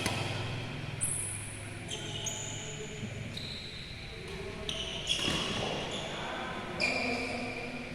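Badminton players' court shoes squeaking on an indoor court floor in short high squeals, with a few sharp racket hits on the shuttlecock, in a reverberant sports hall.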